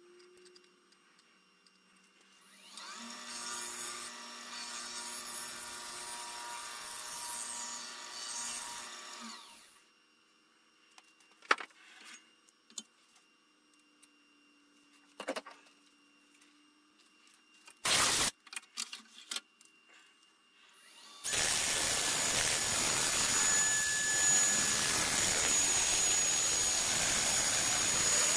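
Woodshop power tools: a motor runs for about six seconds and stops. Scattered knocks and one loud clack follow, then a louder, steady, rushing machine starts suddenly and keeps going.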